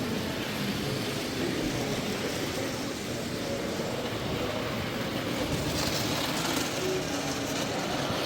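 Steady background hubbub of a crowded exhibition hall: many distant voices blending into a continuous murmur.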